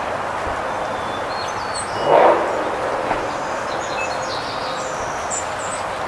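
Faint, short songbird chirps over steady background noise, with one brief, louder muffled sound about two seconds in.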